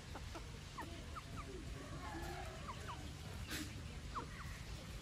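A flock of chickens feeding, giving short high chirps and a few low clucks scattered through, over a steady low background rumble.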